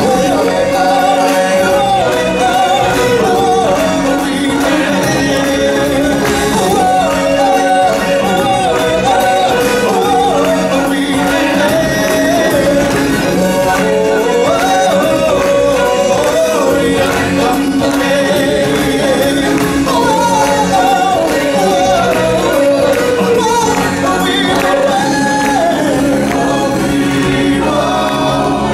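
Stage-show music with a group of singers, their melody rising and falling over a held low note without a break.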